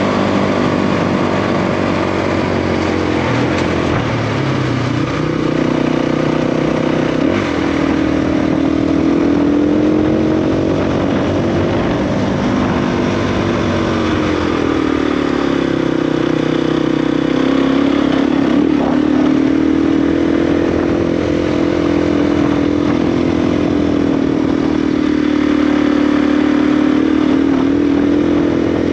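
KTM 350 EXC's single-cylinder four-stroke engine running under way, its pitch rising and falling slowly several times as the throttle opens and closes.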